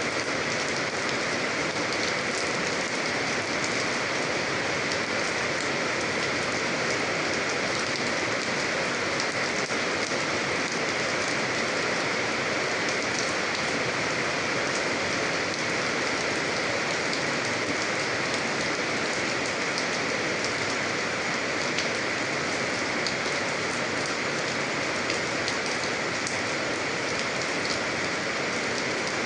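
Steady rain falling on a hard surface, an even hiss with many small drop ticks.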